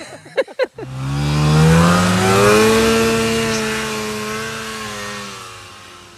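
Snowmobile engine revving up as the sled pulls away through deep powder. Its pitch rises for about a second, then holds steady while the sound slowly fades as the sled rides off.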